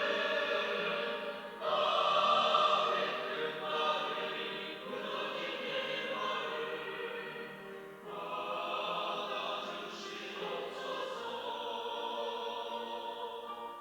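Church choir singing an anthem in long held phrases, with fresh, louder entries about two seconds in and again about eight seconds in.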